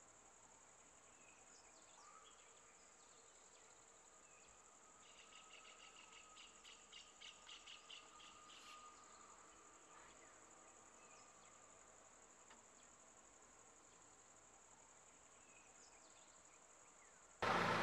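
Faint, steady high-pitched insect drone of crickets or cicadas in roadside forest. From about five to nine seconds in, a rapid pulsed call repeats about four times a second. At the very end a much louder vehicle engine noise cuts in abruptly.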